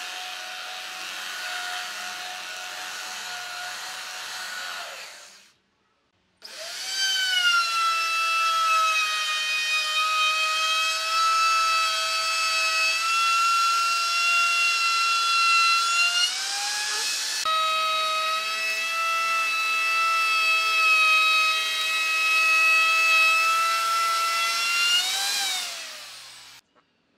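Electric belt sander running on a pine panel, then, after a brief gap, a handheld router spinning up and cutting a moulded profile along the edge of the pine tabletop. The router's steady whine sags slightly in pitch while cutting and rises again shortly before it cuts off near the end.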